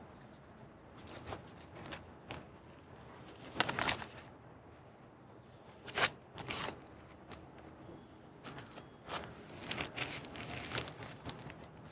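Stiff black panels of a motorcycle bag's inner wall being unfolded and handled on plastic wrapping: scattered taps, clicks and rustles, the loudest about four seconds in, at six seconds and toward the end.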